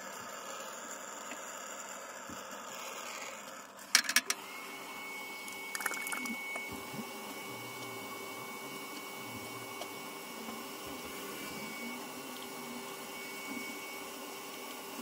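A small motor runs with a steady hum and hiss. About four seconds in come a few sharp clicks, after which a steady high whine holds on.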